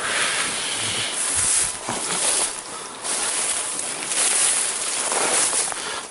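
Dry tall grass and reed stems brushing and rustling against the camera and clothing as someone pushes through them, in uneven bursts.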